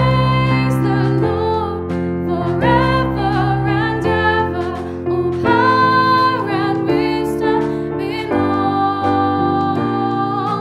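Music: a song with voices singing sustained melody lines over keyboard accompaniment.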